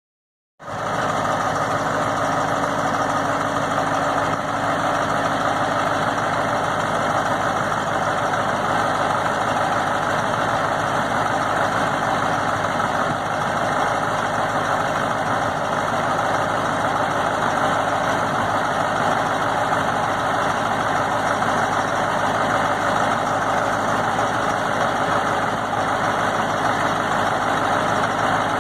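Caterpillar 3208 V8 diesel engine of an Ag-Chem TerraGator 1803 dump truck idling steadily. The sound comes in abruptly about half a second in and holds an even pitch and level throughout.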